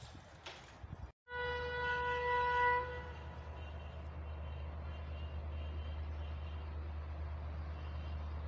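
Train horn sounding one steady note for about a second and a half, starting suddenly about a second in, over a steady low rumble from the approaching train.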